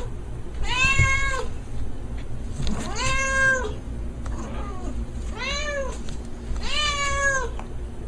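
A cat meowing repeatedly: four drawn-out meows, each rising and then falling in pitch, spaced about two seconds apart, with another starting at the end.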